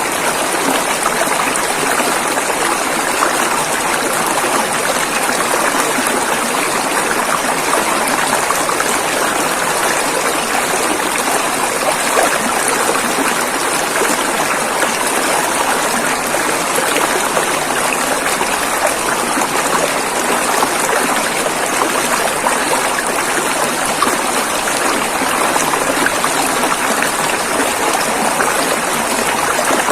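Rushing river water flowing steadily, an even, unbroken sound of moving water with no pauses or single splashes standing out.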